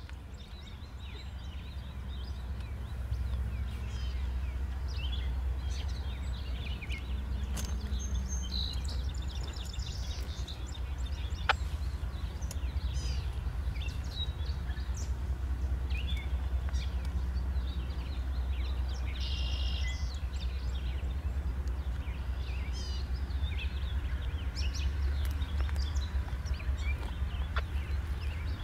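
Low, steady rumble of a distant diesel freight locomotive as the train approaches, building over the first few seconds. Birds chirp and call throughout.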